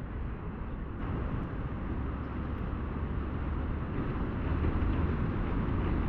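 Steady hum of road traffic, growing slowly louder.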